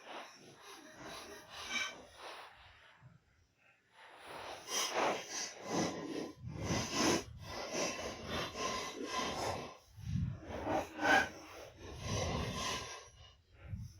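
Hand tools working on a car's strut assembly: irregular rasping, scraping strokes, with a short pause about three seconds in.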